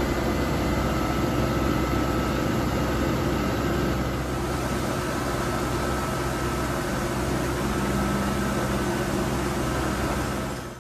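Bridgeport Interact 1 CNC milling machine powered up, giving a steady mechanical hum with several held tones. A further low tone joins about eight seconds in.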